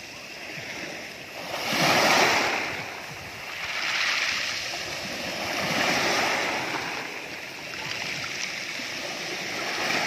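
Small waves breaking and washing over a pebble beach, surging and receding. The loudest wave comes about two seconds in, with smaller surges around four and six seconds.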